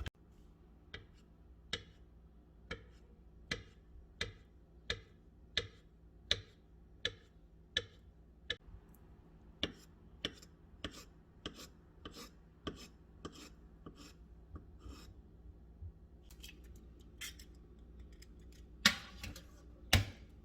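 A steady run of sharp clicks from kitchen work, about one and a half a second, slowing near the end, where two louder knocks land.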